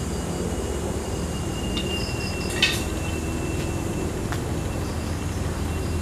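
Steady low outdoor rumble. A faint high tone runs through the middle, and a short sharp sound comes about two and a half seconds in.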